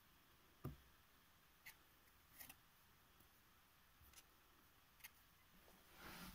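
Near silence with a few faint, scattered ticks and a soft scrabble near the end: kittens' claws and paws on cardboard boxes.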